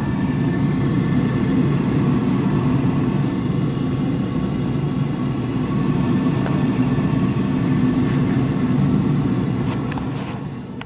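Fuel oil furnace burner running, with its motor and oil flame making a steady low hum. The level drops somewhat near the end.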